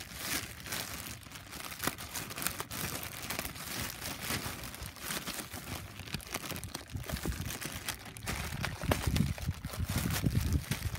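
Clear plastic bag crinkling and rustling as it is pulled and handled around a new radiator, with heavier handling noise in the last few seconds.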